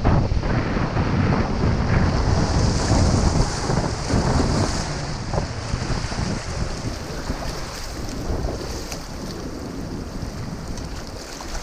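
Strong gusty wind buffeting the microphone, a heavy low rumble with a rushing hiss; the gust eases after about five seconds.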